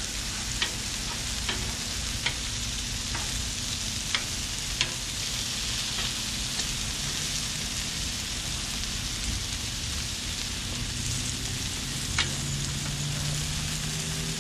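Breaded pork chops sizzling steadily on a Blackstone flat-top griddle, with sharp clicks of a metal spatula against the griddle surface several times in the first five seconds and once more near the end.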